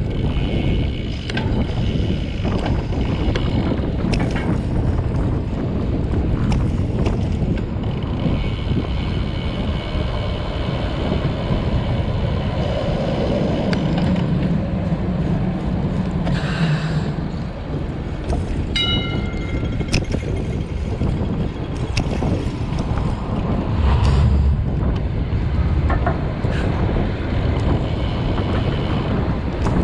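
Wind buffeting the microphone of a road-bike rider on the move, a steady rumbling noise, with a brief high ringing tone about two-thirds of the way through.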